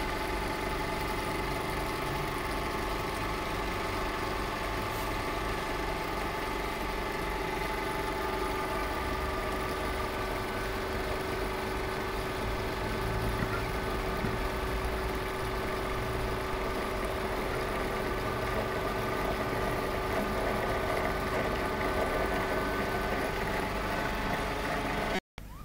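Vacuum pump running steadily during resin infusion, a constant hum with a few steady tones as it holds vacuum on the silicone rubber bag and draws resin through the channels. It cuts off suddenly near the end.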